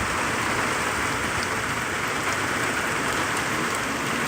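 Heavy thunderstorm rain falling steadily, an even unbroken wash of noise.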